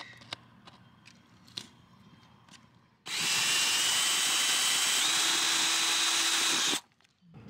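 Power drill boring a hole through wood with a spade bit. The motor whine starts about three seconds in, steps up slightly in pitch about two seconds later and cuts off abruptly after nearly four seconds. A few faint knocks come before it.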